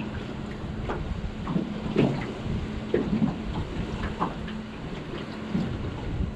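Choppy water slapping and splashing against a small aluminium boat's hull in irregular knocks, over wind noise and a low steady hum.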